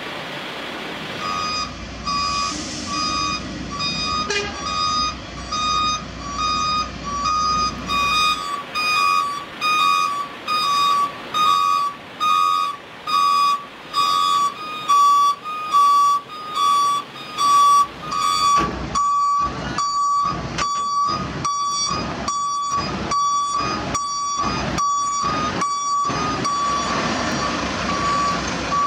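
Heavy truck's reversing alarm beeping steadily a little over once a second over diesel engine rumble. About two-thirds of the way in the beeps turn louder and harsher.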